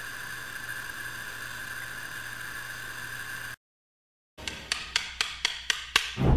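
A steady electric hum with a thin whine cuts off abruptly about three and a half seconds in. After a short silence, a run of sharp wood-block-like percussion ticks, about four a second, starts near the end as a music track begins.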